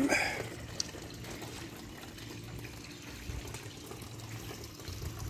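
Water from a garden-fountain pump spout pouring into a metal tub and trickling over into a small pond: a steady splashing trickle. A brief louder noise sounds right at the start.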